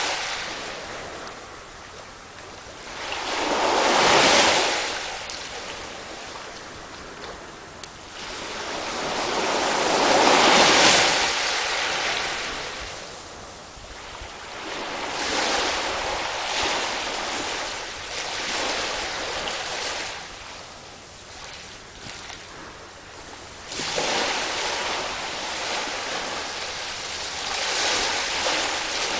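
Sea waves breaking and washing in, a rushing sound that swells and fades every several seconds, loudest about four and eleven seconds in.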